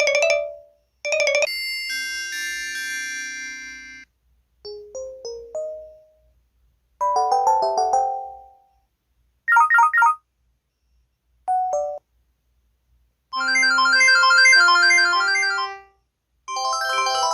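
A series of short electronic phone alert jingles from an MS500, about eight in turn, each a few quick notes with brief silences between them; the last two are longer, busier melodies.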